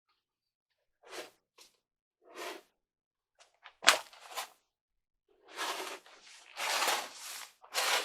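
Irregular bursts of rustling, scraping and tearing from material being handled and fitted by hand, with a sharp click about four seconds in and longer, louder rustling in the second half.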